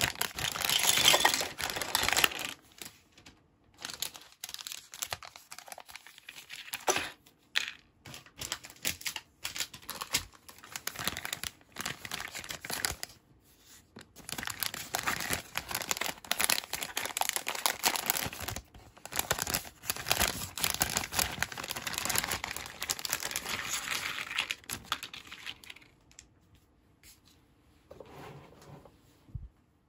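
Thin clear plastic bags crinkling and rustling as hands handle and open bags of small toy pieces. It comes in uneven bursts, is busiest through the middle stretch, and dies away near the end.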